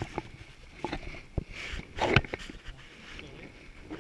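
Irregular knocks and clicks from gear being handled in a small wooden rowboat, with a short rustle about halfway and a louder knock about two seconds in.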